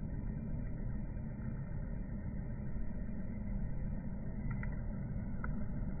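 Steady low ambient rumble, with two brief faint ticks near the end.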